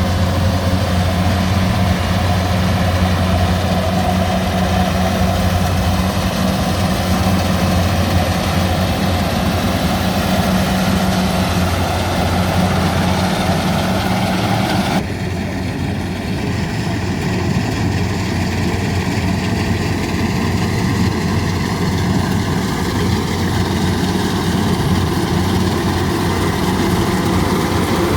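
Rice combine harvester's engine running at a steady speed, a constant low hum. About halfway through, the higher part of the sound changes abruptly while the hum carries on.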